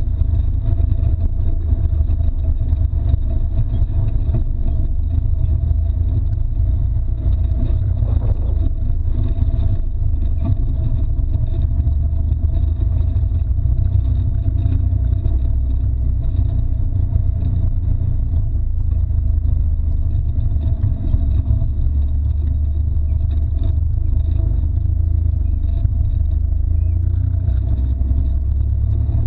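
Can-Am Maverick X3 side-by-side driving over a rocky desert trail: a steady, heavy low rumble of its engine and drivetrain, with faint small knocks from the rough ground.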